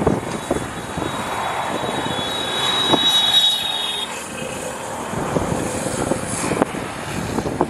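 A motor vehicle engine running steadily, with a couple of sharp knocks.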